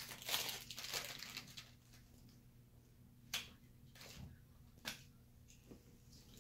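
Faint rustling of small toy packaging as it is handled for about a second and a half, then a few light clicks of little plastic pieces being picked up and set down.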